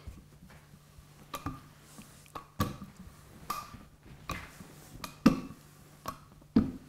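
Wooden rolling pin rolling out cookie-like dough on parchment paper over a wooden board, with about six irregular knocks and taps roughly a second apart as the pin is pushed and set down.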